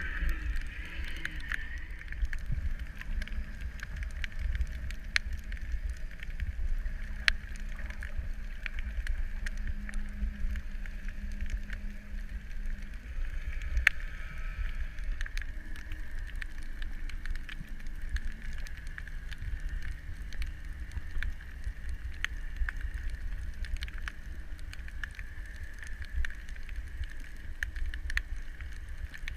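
Underwater ambience: a steady low rumble of water on the camera housing with a faint hum, and scattered sharp clicks throughout.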